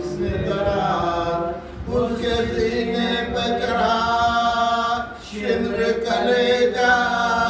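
Voice chanting a marsiya, an Urdu elegy for Muharram, in long held melodic phrases without instruments. There are short pauses between phrases, one about two seconds in and one about five seconds in.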